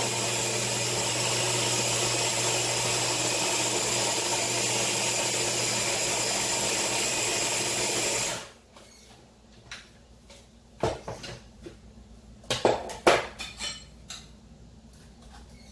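Electric mini food chopper running steadily under a pressing hand, blending a cheese, flour and egg dough. It stops abruptly about eight seconds in, followed by a few knocks and clinks as the chopper and its bowl are handled.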